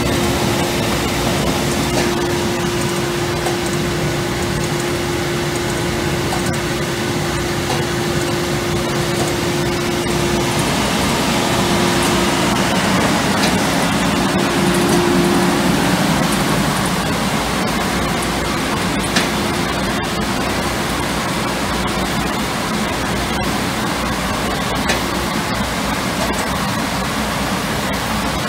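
Bauer model 333 gas-fired peanut drum roaster running with its burners lit: a steady rushing noise from the gas/air mix blower and burner flames, with a steady hum that weakens about halfway through.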